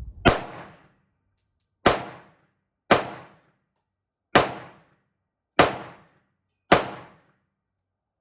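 Six single gunshots fired at an uneven pace, about one to one and a half seconds apart, each a sharp crack with a short ring-out.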